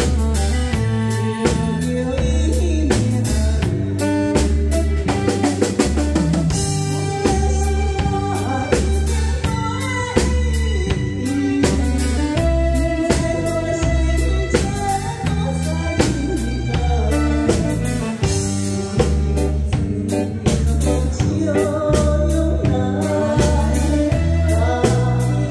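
A woman singing a Taiwanese-language ballad into a microphone over amplified band backing with keyboard, bass and a steady drum-kit beat.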